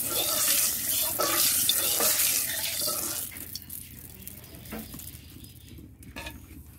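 Hot cooking oil sizzling in an iron karahi, loud for about the first three seconds, then fading to a faint crackle.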